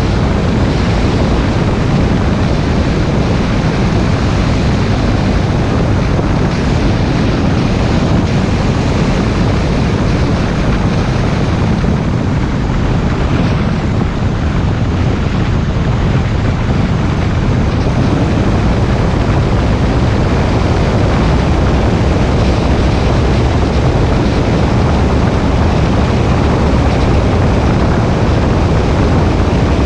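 Steady road and engine noise of a moving car, heard from inside the cabin: a continuous low rumble with tyre hiss, easing slightly about halfway through.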